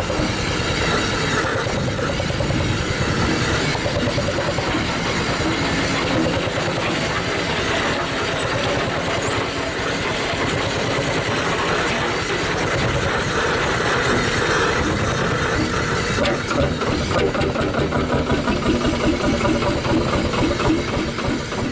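Single-cylinder two-stroke hot-bulb semi-diesel engine of a late-1950s HSCS (Red Star) G-35 tractor running during a hard start after long storage. It has a regular beat of about three to four a second, most distinct near the end.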